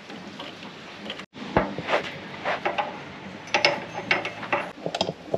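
Sharp metal clicks and light clatter, in irregular clusters, from tools working an AN fitting on a braided fuel line.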